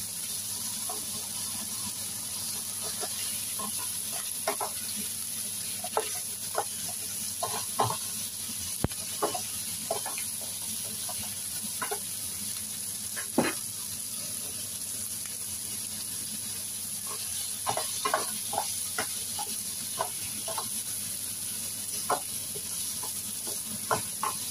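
Pork pieces with onions and potatoes sizzling in oil in a nonstick frying pan, a steady hiss, while a spatula stirs and turns them with irregular taps and scrapes against the pan.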